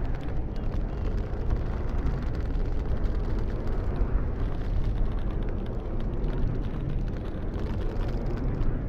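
Strong wind blowing steadily as a deep, even rumble, with no separate knocks or tones standing out.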